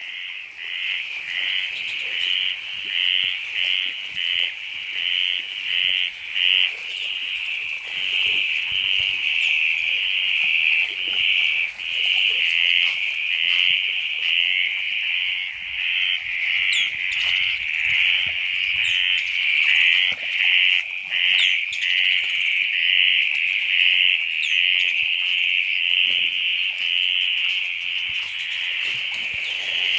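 A dense chorus of frogs calling, a high trill that pulses a couple of times a second at first and then runs almost unbroken.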